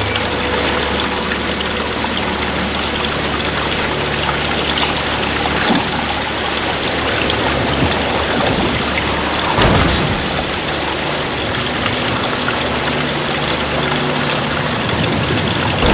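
Rushing, pouring water over low held tones, swelling into a brief louder whoosh about ten seconds in.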